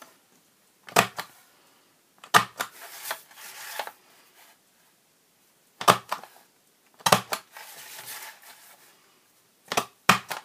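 Stampin' Up! Envelope Punch Board punching notches in card stock: a sharp click each time the punch is pressed, five or six punches a second or more apart, the last two close together. After some punches there is a softer rustle as the card is slid along the board to the next score line.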